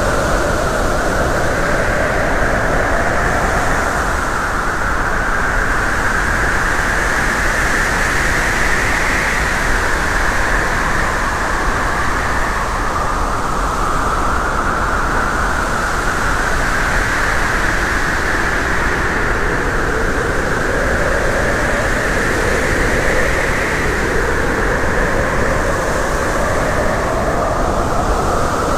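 Steady road and wind noise from a moving vehicle, an even rushing with a slowly wavering pitch that never stops.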